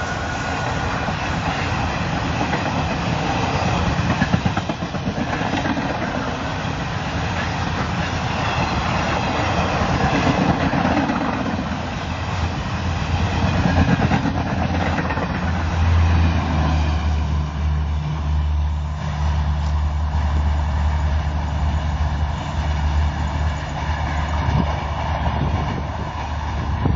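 An express passenger train running through at speed, its coaches' wheels giving a steady rushing clatter on the rails. The end of a horn fades away at the very start, and about halfway through a steady low drone takes over beneath the rush.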